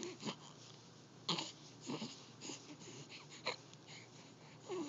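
Two-month-old baby making short, quiet coos and grunts, about one a second, with pauses between.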